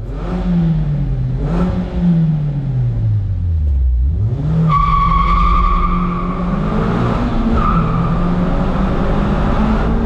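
Sports car engine and exhaust under way: the engine note drops off and then climbs again before holding steady. A steady high whine or squeal joins about five seconds in.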